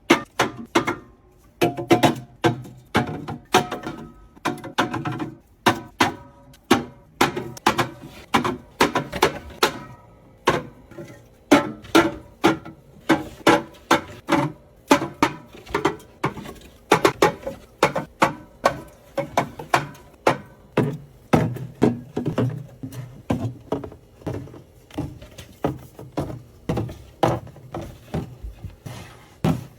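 Background music with a quick, plucky rhythm of about two notes a second.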